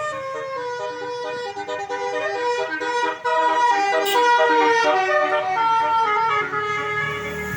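A tourist bus's Basuri telolet horn, a set of multi-tone air horns, playing a quick melody of changing notes. It gets louder about three seconds in.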